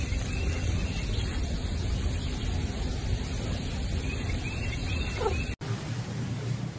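A few short animal calls over a steady noisy background, with one falling call about five seconds in; the sound cuts off abruptly just after and a quieter background follows.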